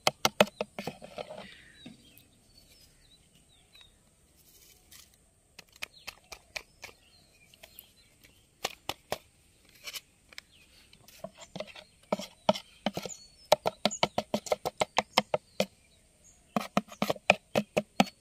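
A metal teaspoon clicking and scraping against a thin plastic tub while stirring crushed tablet powder into a little water. The rapid clicks come in bursts with short pauses between them.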